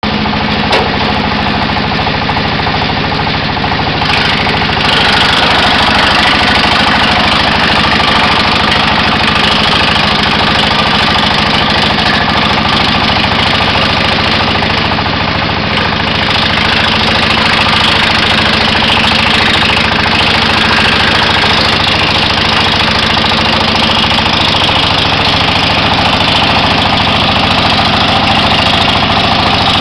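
The single-cylinder engine of an FRD 20SH wood chipper running steadily on test. It gets louder, with more high hiss, about five seconds in.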